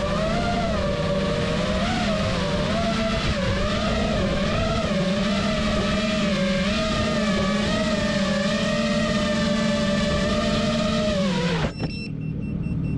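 A motor running at high revs, its pitch wavering up and down without a break, then cutting off abruptly near the end, leaving faint steady tones.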